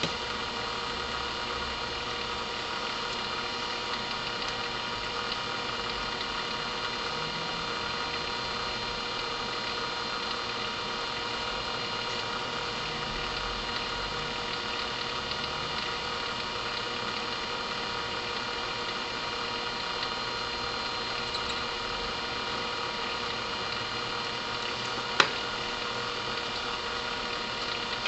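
Steady background machine hum made of several fixed tones, unchanging throughout, with one sharp click near the end.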